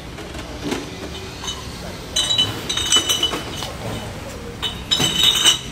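Glass bottles clinking against each other in plastic crates as the crates are handled, in two bouts of bright rattling clinks, each about a second long and a couple of seconds apart.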